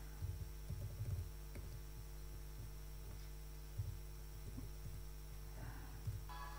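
Faint taps of typing on a laptop keyboard, picked up by the lectern microphone as light low knocks over a steady mains hum. Music begins playing just at the end.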